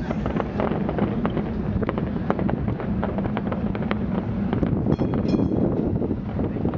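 Fireworks display: many sharp crackles and pops from bursting shells over a steady rumble of wind on the microphone, with a brief high whistle about five seconds in.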